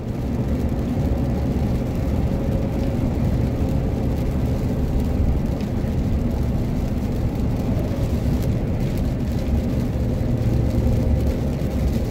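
Road noise inside a moving vehicle on a rain-wet highway: a steady low rumble of engine and tyres on wet pavement, with a faint steady whine.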